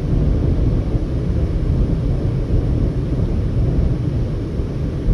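Car driving at highway speed: a steady low rumble of road and wind noise.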